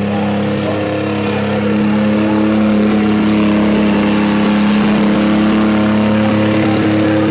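Jaguar 5.3-litre V12 engine of a giant custom motorcycle running at a steady, raised speed, getting a little louder about two seconds in.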